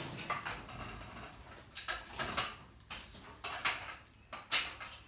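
Metal clanks and rattles of steel wheel dollies being handled and set against a truck's tyres: a string of separate knocks, the loudest about four and a half seconds in.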